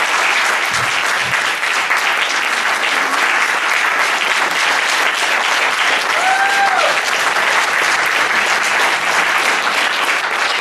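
Audience applauding steadily after a spoken-word rap verse, with one short rising-and-falling whoop about six seconds in.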